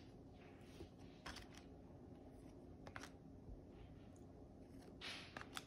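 Faint handling of trading cards over quiet room tone: a few soft clicks, then a brief sliding swish of cards near the end.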